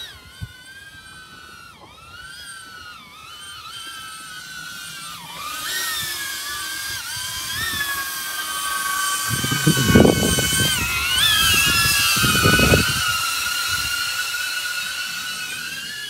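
DJI Avata drone's ducted propellers whining in flight, the pitch wavering up and down with throttle and growing louder as it passes close around the middle, then easing off. Low gusty rumbles of wind on the microphone come in about nine to thirteen seconds in.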